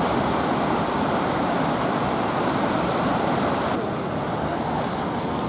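Kamo River in flood after torrential rain, its swollen brown water rushing and churning in a steady noise; the sound turns duller about four seconds in.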